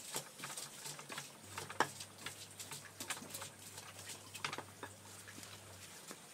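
Scattered light clicks and taps of hands handling things at a table, irregular and a few to the second, the sharpest about two seconds in, over a faint low hum.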